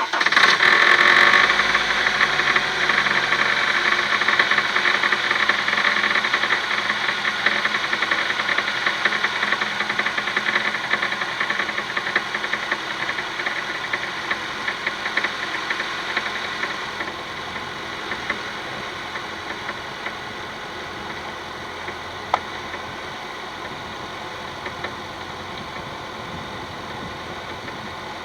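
Honda R20A 2.0-litre four-cylinder engine just after a cold start, running with a fast, clearly heard tapping knock ('tyk-tyk-tyk'). The tapping and the louder running die away after about seventeen seconds, leaving a quieter steady idle; one short click near the end.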